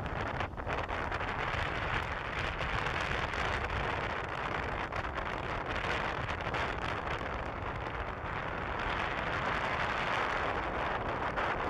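Wind buffeting the microphone on the deck of a moving ship, over a steady rushing hiss of water and the ship underway.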